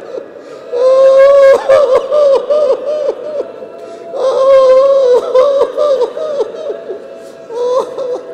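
Mourners wailing and sobbing aloud in grief, in two long waves of falling, breaking cries and a shorter one near the end.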